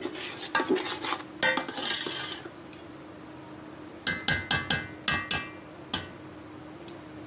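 Perforated steel spoon stirring soft-boiled rice in an aluminium pot, scraping and knocking against the pot's sides. A quick run of sharp, ringing metal clinks comes about four seconds in, over a faint steady hum.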